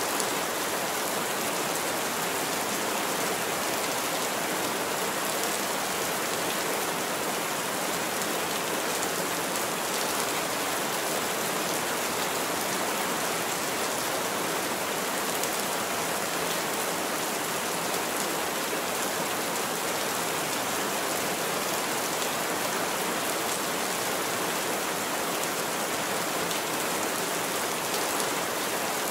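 Heavy rain falling steadily, a dense, even hiss of drops that does not let up.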